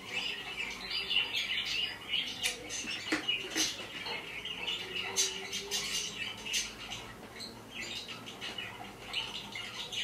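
Parrots squawking in many short, sharp calls, one after another, played back from a video through a computer's speakers.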